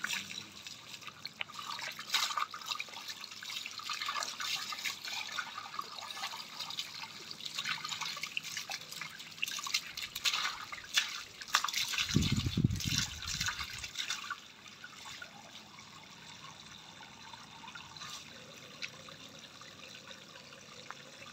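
Water from a garden hose splashing over a puppy's wet fur and onto brick paving, with a hand rubbing the wet coat; the splashing is busiest in the first two thirds and turns to a quieter steady trickle after about fourteen seconds. A brief low rumble lasts about two seconds just past the middle.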